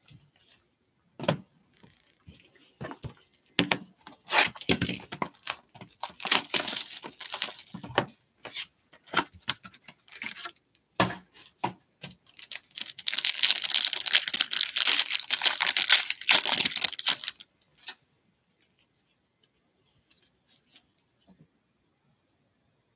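Plastic trading-card pack wrapper being torn open and crinkled by gloved hands for about five seconds. Before it come scattered clicks and rustles of cards and card holders being handled.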